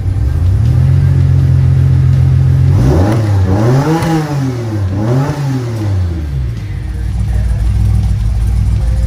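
Cammed DeLorean DMC-12's PRV V6 engine running steadily, then revved twice, its pitch rising and falling each time, before settling back to a steady idle.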